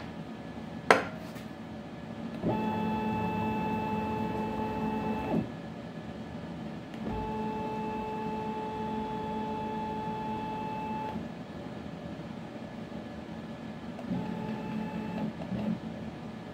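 Avid Desktop Pro CNC router's stepper motors whining steadily as the gantry and spindle are jogged from a handheld pendant, in three separate moves of about three seconds, four seconds and one second. A single sharp click comes about a second in, before the first move.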